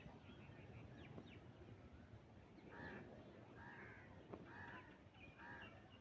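Faint bird calls: four harsh calls about a second apart in the second half, with a few thin high chirps before them.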